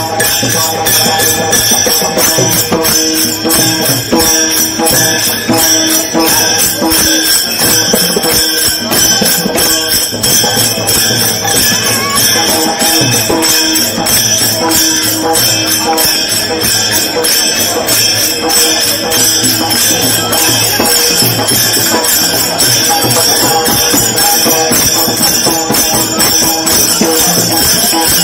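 Many pairs of small brass hand cymbals (taal) clashing together in a steady rhythm, over devotional music.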